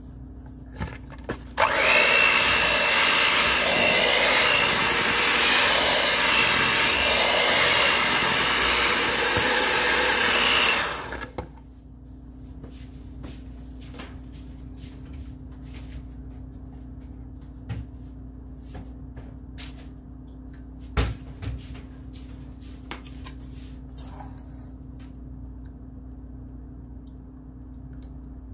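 Electric mixer running steadily for about nine seconds, with a high motor whine, then switched off; afterwards only scattered light clicks and knocks over a low steady hum.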